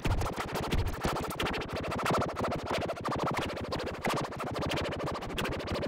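Background music with a fast, dense electronic beat.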